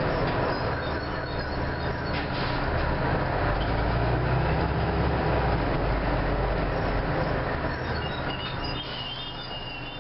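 Orion V diesel city bus engine and drivetrain running steadily while under way, heard from inside the bus. Near the end the sound eases off and a faint high squeal comes in.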